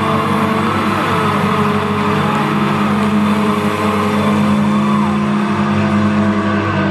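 Loud live band music heard through a phone's microphone in an arena: held low chords under a melody line that slides up and down in pitch, with no singing.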